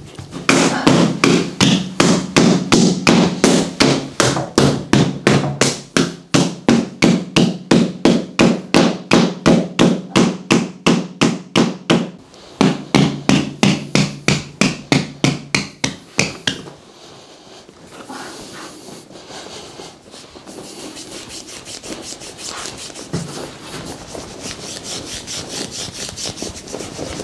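Handheld massage tool tapping rapidly and evenly on the back of the thigh, about four strikes a second, with a brief pause about twelve seconds in. It stops about sixteen seconds in, and softer rubbing of hands over fabric follows.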